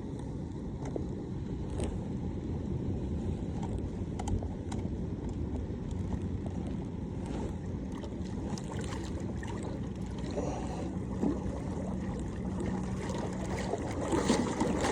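Wind rumbling on the microphone aboard a kayak, with scattered small knocks and rubbing as the anchor line is hauled in. A faint steady low hum comes in late, and the handling sounds grow busier near the end.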